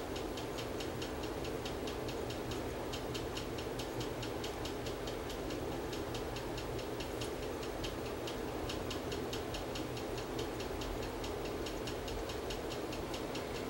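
Encino portable MP3 CD player's optical pickup mechanism ticking as it searches and reads the disc for a newly selected track: a fast, even run of light clicks, several a second, over a steady low hum.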